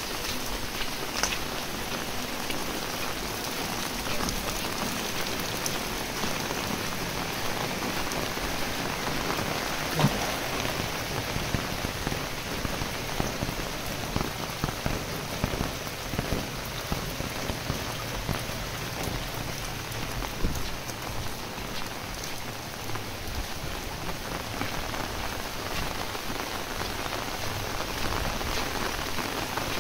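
Heavy rain falling steadily, with scattered sharper drop hits, the loudest about ten seconds in.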